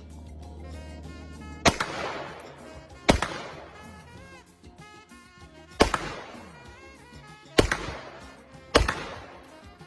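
Five handgun shots fired as a timed string, unevenly spaced one to three seconds apart, each with a short ringing tail, over background music.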